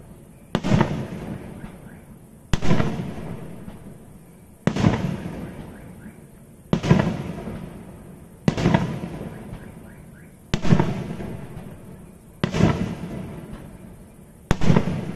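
Fireworks going off: a loud bang about every two seconds, eight in all, each one trailing away over a second or more before the next.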